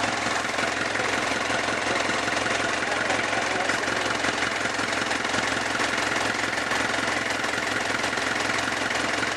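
Kia Bongo's diesel engine idling steadily with a light clatter, running again after its no-crank starter fault was fixed.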